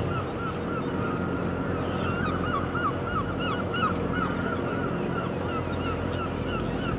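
Gull calling a long run of short, harsh, repeated notes, a few a second, growing stronger about two seconds in, over a steady low hum.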